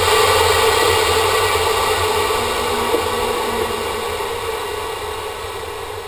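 Improved Orion rocket motor of a REXUS sounding rocket burning during ascent, heard muffled from inside the payload as a steady rushing noise with a low hum that slowly fades. A single click about three seconds in.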